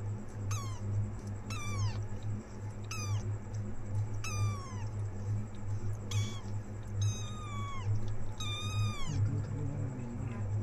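A very young kitten meowing repeatedly: a string of high, thin cries, each falling in pitch, about a second apart, over a steady low hum.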